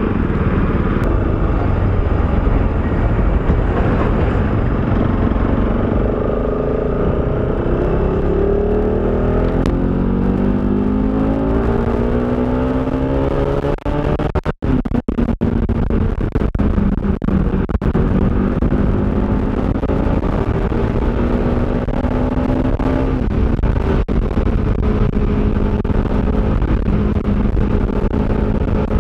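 Motorcycle engine pulling up through the gears, its pitch climbing and falling back several times, then holding steady at cruising speed, under heavy wind rush on the microphone. The sound cuts out for moments a few times about halfway through.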